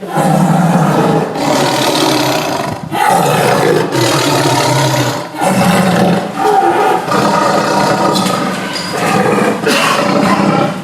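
Angry tiger growling and snarling: a run of loud, rough growls of one to one and a half seconds each, with short breaks between them.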